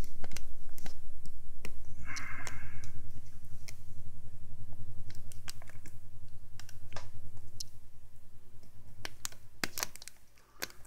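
Handling noise from a clear plastic jar: scattered sharp clicks and taps over a steady low hum that fades out near the end.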